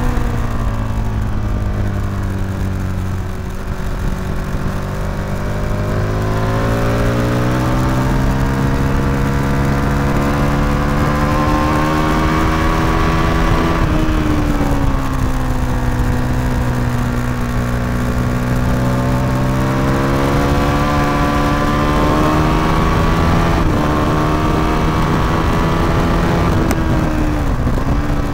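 Motorcycle engine heard from an onboard camera at track speed, under wind noise. Its pitch falls in the first few seconds, climbs slowly under acceleration to about halfway, drops sharply, climbs again and dips briefly a couple of times near the end.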